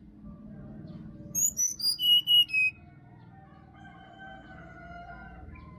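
Brown-chested jungle flycatcher singing a quick phrase of about six loud, clear whistled notes that step down in pitch, over a low background rumble. About halfway through, a fainter drawn-out call follows.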